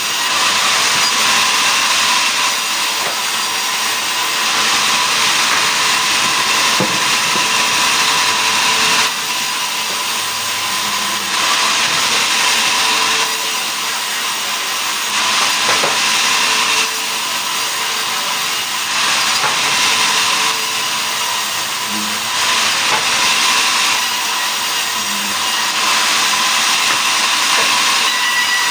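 Sawmill saw cutting mahogany into boards: a steady whine and hiss of the blade in the wood that swells and eases every couple of seconds.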